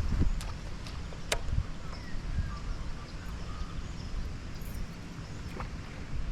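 Wind buffeting the microphone as a low rumble, with a sharp click about a second in and a few fainter clicks, and faint short bird chirps.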